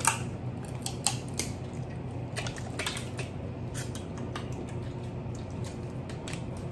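Crab leg shells being cracked and snapped apart by hand: a run of irregular sharp cracks and clicks.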